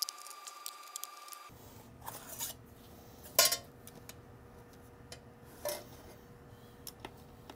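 Light metallic clinks and handling knocks as a server power supply's sheet-metal cover is taken off and handled, four separate clinks with the loudest about three and a half seconds in.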